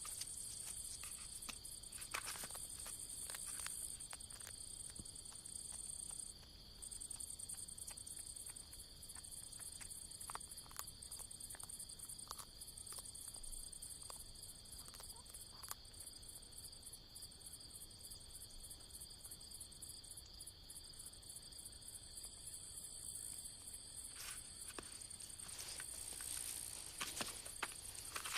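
Crickets chirring steadily in a night insect chorus at two high pitches, the higher one stopping briefly about six seconds in, with scattered faint clicks and rustles.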